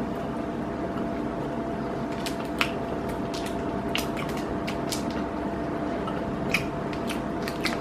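Crinkling of a plastic snack wrapper and chewing on a pork jerky stick: scattered short crackles, a few at a time, over a steady low hum.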